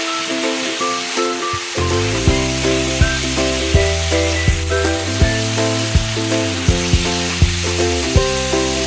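Food sizzling as it stir-fries in a hot pan, under background music whose bass and steady beat come in about two seconds in.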